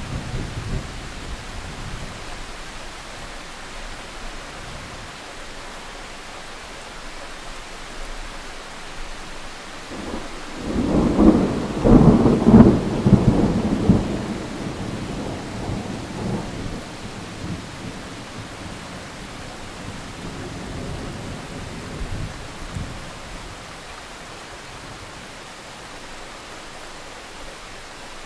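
A thunderclap breaks about ten seconds in, loud for a few seconds, then rumbles on and dies away over the next ten seconds. Steady rain hisses underneath throughout.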